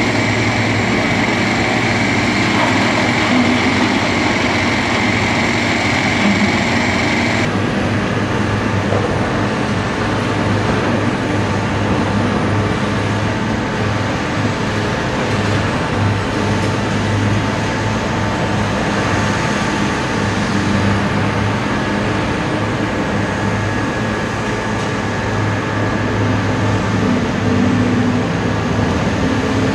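Diesel engine of a Liebherr R 964B crawler excavator running steadily under load as it digs and loads a dump truck. A high steady whine stops abruptly about seven and a half seconds in.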